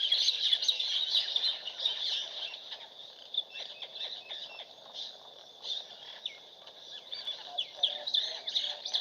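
Many small songbirds chirping and calling over one another in a dense chorus of short, high chirps. The chorus thins out around the middle and grows busier again near the end.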